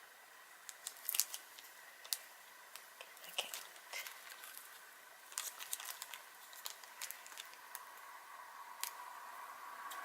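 Plastic packaging of a blind-box vinyl figure crinkling and crackling as it is handled and opened, in scattered small clicks and rustles.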